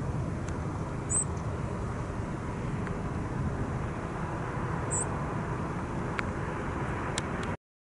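Wind buffeting the microphone outdoors: a steady, unsettled low rumble, with two brief high chirps, one about a second in and one about five seconds in. It cuts off suddenly near the end.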